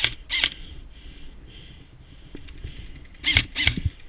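Airsoft electric rifle fired in two pairs of quick single shots, one pair at the start and another about three seconds in, with faint rapid clicking between.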